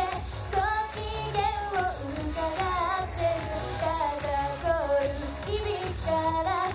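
A young woman singing an idol pop song live into a handheld microphone over backing music with a steady beat, her voice carrying the melody in long, bending phrases.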